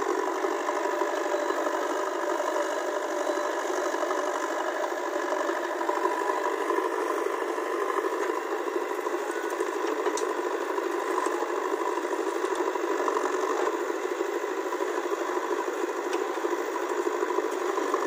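Diesel engine of a JCB 3DX backhoe loader running steadily under working load as the backhoe digs soil and swings it over to a tractor trolley.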